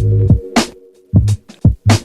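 Electronic background music with a drum-machine beat: deep kick drums, sharp snare hits and a held synth chord.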